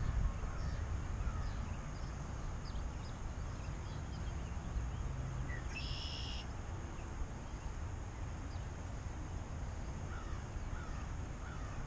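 Wind rumbling on the microphone with scattered short bird chirps, and one brief, higher bird call about six seconds in.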